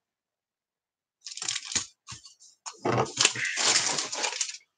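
Plastic model-kit sprues clattering and rustling as they are handled and set down, in a short burst and then a longer stretch of rattling.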